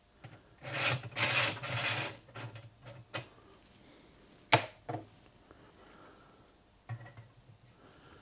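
Stainless steel camp stove parts being handled: a scraping rattle as the grill grid is shifted on the stove frame, a few clicks and a sharp metal knock about four and a half seconds in, then a short scrape near the end as a cooking pot is set down on the grid.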